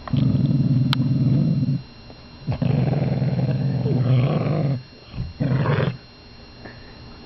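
Puppy growling in rattling bouts while fighting over a bone: two long growls of about two seconds each, then a short one a little before the end.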